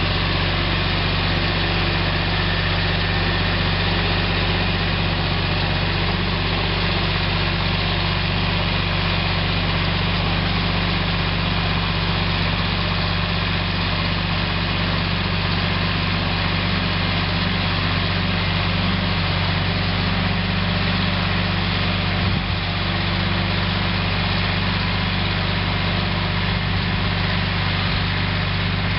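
Yanmar YM169 compact diesel tractor engine running steadily under load, pulling a rear digging implement through the soil to lift potatoes.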